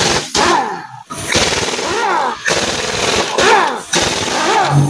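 Impact wrench hammering and spinning in several short bursts as it undoes a wheel's lug nuts.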